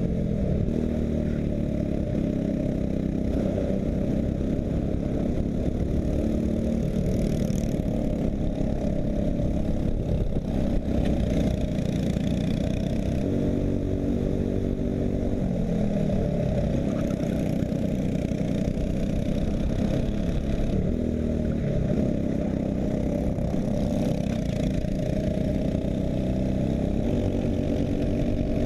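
Racing kart engine at race speed, its pitch climbing and falling again every few seconds as it revs up and comes off the throttle lap after lap.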